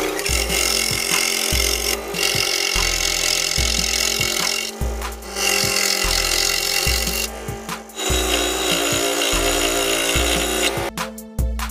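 Electric scroll saw cutting through a small block of wood, its blade running steadily with a few short breaks.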